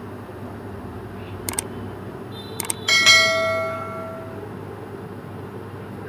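Subscribe-button sound effect: a few quick mouse clicks, then a bell ding of several ringing tones that fades out over about a second and a half. A steady low hum runs underneath.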